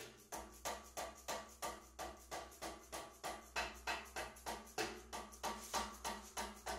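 Rapid, even mechanical clicking, three to four clicks a second and never pausing, from working the hydraulic shop press and barrel vise by hand.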